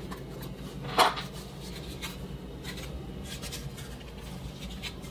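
Small screwdriver driving screws through a wooden paint stir stick into a plastic model freight car body, with faint scraping and rubbing and one louder scrape about a second in. A steady low hum runs underneath.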